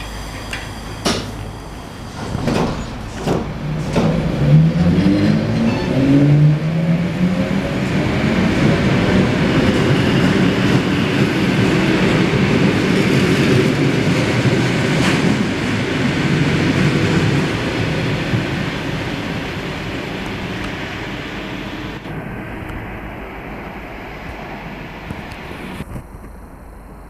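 EG2Tv Ivolga electric commuter train pulling out past the platform. Its wheels click over rail joints, then its electric traction motors give a rising whine as it speeds up. This settles into steady running noise that fades over the last several seconds as the train draws away.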